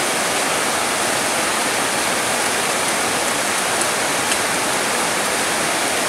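Heavy rain falling steadily: a dense, even hiss of rain pouring down on palm fronds and trees.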